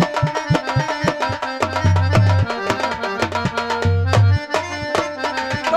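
Instrumental interlude of Dhola folk-theatre music: a quick hand-drum rhythm with deep low thumps every second or two, over held keyboard notes.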